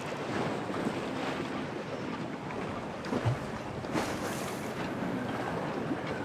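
Storm wind and waves washing in a harbour, with wind buffeting the microphone. A low thump comes about three seconds in, and a sharper knock about a second later.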